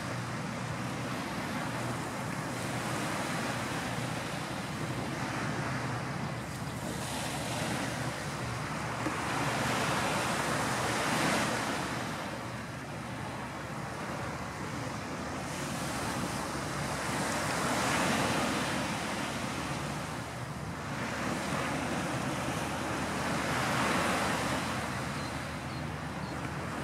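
Surf washing ashore: a rushing noise that swells and fades every six or seven seconds.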